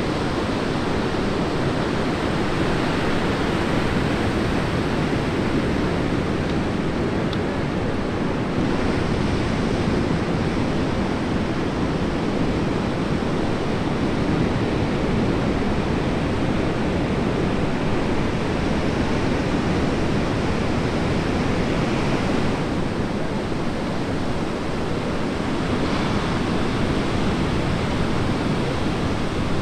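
Ocean surf from a large hurricane swell breaking, a steady rush of noise without letup.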